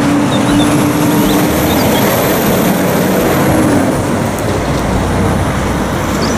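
Truck engine running with road noise: a loud, steady rumble under a low hum that drops in pitch about two seconds in.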